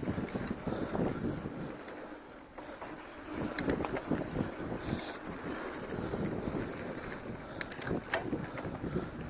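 Mountain bike riding on a dirt singletrack trail: knobby tyres rumbling over the ground and the bike rattling, with a few sharp clacks and wind buffeting the camera's microphone.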